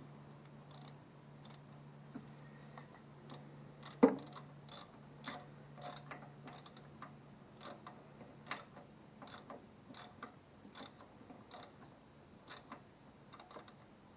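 Scattered light metallic clicks and one sharp knock about four seconds in, as a spanner tightens the clamp nut on a Pertronix distributor, over a faint steady hum.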